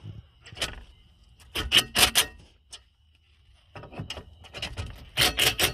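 Makita cordless power tool run in short trigger bursts, tightening 10 mm nuts onto the ECU mounting bracket. Four bursts of rapid mechanical clicking with pauses between them; the second and last bursts are the loudest.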